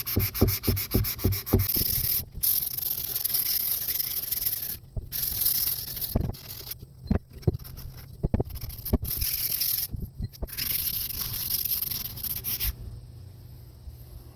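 Sandpaper rubbed back and forth by hand over a wooden axe handle, taking off its factory coating. Quick short strokes at first, then longer strokes with brief pauses.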